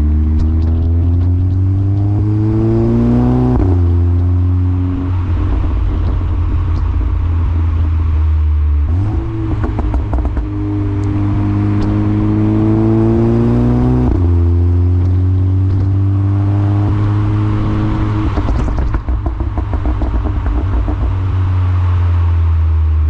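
2014 VW Golf 7 GTI Performance's turbocharged 2.0-litre four-cylinder through a CTS Turbo exhaust, revving up under acceleration, its note rising and dropping at gear changes about four and fourteen seconds in. The Stage 2 tune's overrun crackles pop in quick strings around nine and again around nineteen seconds in, and the engine then runs at a steady pitch.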